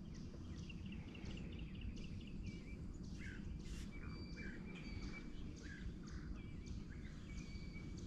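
Birds chirping and calling in short, repeated notes, with a few longer thin held notes, over a low, steady background rumble.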